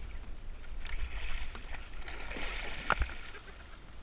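Water splashing and churning as a snagged paddlefish thrashes beside the kayak and pulls away, with a sharp knock about three seconds in.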